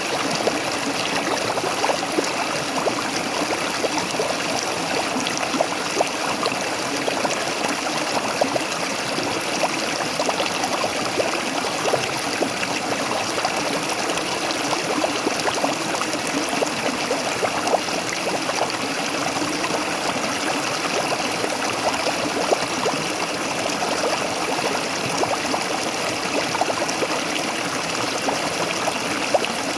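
Waterfall: water falling and splashing steadily, a constant rush flecked with small splashes.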